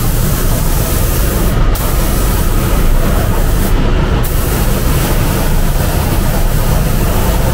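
Gravity-feed air spray gun hissing as it sprays base-colour paint onto car side skirts, the hiss cutting out briefly twice as the trigger is let go between passes, over the steady low rumble of the spray booth's airflow.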